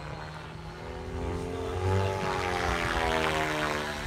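Align T-Rex 700X electric RC helicopter flying past overhead: the rotor and drivetrain whine grows louder, its pitch rising and then dropping in the middle as it goes by.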